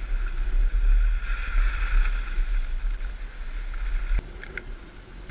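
Wind buffeting a helmet camera's microphone while skiing, with the hiss of skis sliding over snow. The rumble drops away suddenly about four seconds in.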